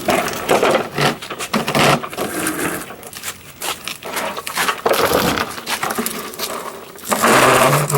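Irregular scraping and knocking as a push lawnmower is handled and turned around by hand, its wheels and deck rubbing and bumping, with the loudest scrape near the end.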